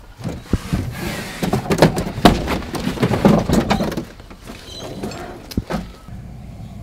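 Tyres and alloy wheels being loaded into a hatchback's cabin and boot: a run of thuds, knocks and rubbing, busiest between about one and four seconds in, then quieter.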